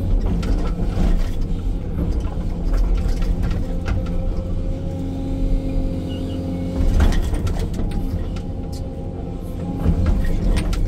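Excavator's diesel engine and hydraulics running under load, heard from inside the cab, with the bucket scraping and knocking through dirt and rock, loudest about seven seconds in and again near the end.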